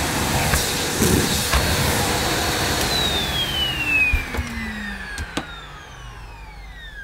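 A vacuum cleaner running, then switched off about three seconds in, its motor whine falling steadily in pitch as it spins down. A few sharp knocks of handling near the end.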